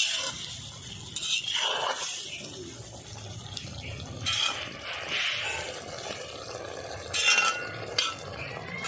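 Spatula stirring and scraping a thick, simmering prawn curry in a cast-iron kadai, with the wet gravy sloshing and a few clinks against the pan near the end.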